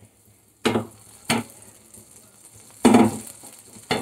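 Spatula scraping and knocking in a frying pan, four sharp strokes at uneven intervals. Under them is a faint sizzle of butter melting in the hot pan and starting to bubble.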